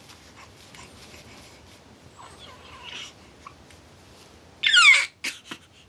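Newborn baby fussing with soft whimpers, then a short loud cry about four and a half seconds in, followed by two brief sobs.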